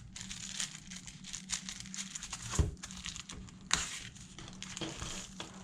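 Paper and packaging crinkling as a new wallet and its warranty card are handled, with many light clicks and rustles and two louder taps about two and a half and three and a half seconds in.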